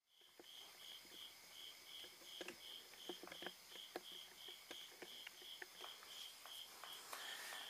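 Faint cricket chirping, an even pulse of about three chirps a second, with scattered light clicks and taps.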